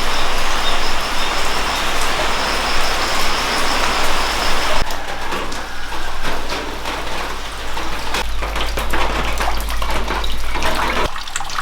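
Rushing water, a steady hiss that changes abruptly about five seconds in to splashier water with many small clicks.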